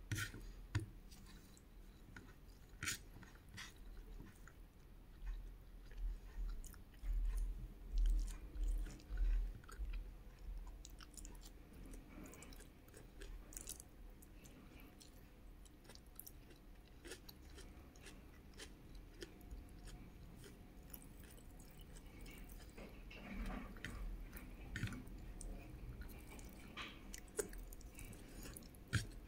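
Close-miked chewing of chickpea curry and rice: soft wet mouth sounds with many small clicks. There are a few low thumps from about six to ten seconds in.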